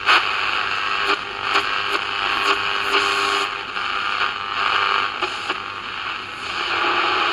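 Sanyo RP1270 AM pocket radio giving out hiss and static through its small speaker, with sharp crackles in the first three seconds and the hiss swelling and fading after that.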